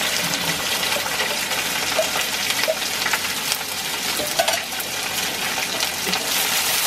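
Sliced onions sizzling steadily as they fry in hot oil in a wide metal pan, with a few light clicks; a metal spoon starts stirring them near the end.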